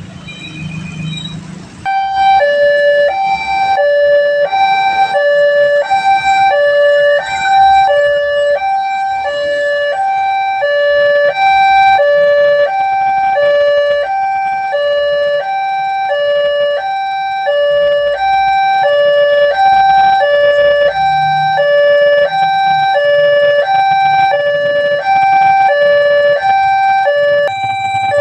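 Railway level-crossing warning alarm sounding: an electronic two-tone signal switching back and forth between a higher and a lower note, less than a second per cycle, which warns that a train is approaching. It starts abruptly about two seconds in, over low traffic noise.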